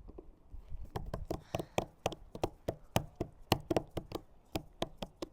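A child's hands drumming on a boat-deck surface: a quick, uneven run of sharp knocks, about four or five a second, starting about a second in.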